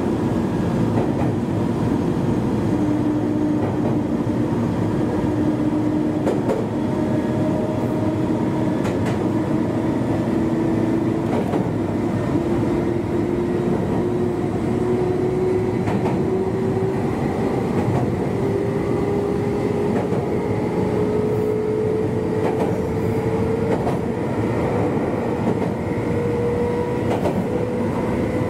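Meitetsu 1200 series electric train running at speed. The wheels rumble on the rails with a few scattered rail clicks, and a drive whine rises slowly in pitch as the train picks up speed.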